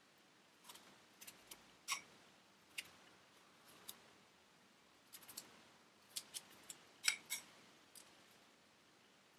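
Kitchen knife cutting fresh strawberries held in the hand: a string of faint, sharp, irregular clicks as the blade goes through the fruit, the loudest about seven seconds in.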